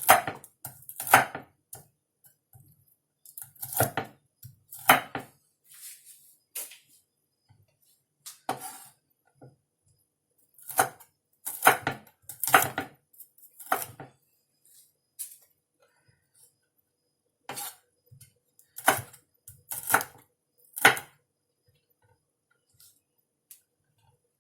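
Kitchen knife slicing red and green chilies on a cutting board: irregular sharp knocks, often two or three close together, with pauses between.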